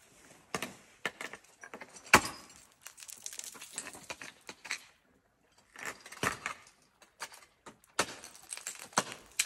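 Ice-climbing tools and crampons striking and chipping ice: a string of sharp knocks with scraping, clattering ice and clinking metal between them. The loudest strike comes about two seconds in, and there is a short pause past the middle.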